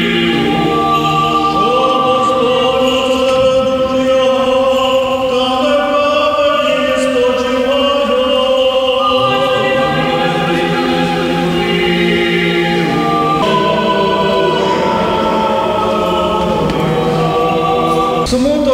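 Orthodox church choir singing unaccompanied funeral chant in long held chords that change pitch about two-thirds of the way through.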